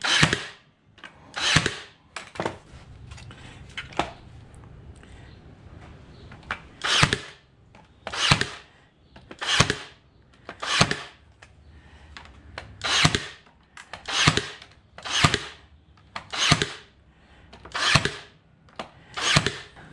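Cordless Ryobi stapler firing 1¼ inch staples into pine boards, about fourteen shots, each a short sharp snap, mostly a second or so apart with a pause around five seconds in.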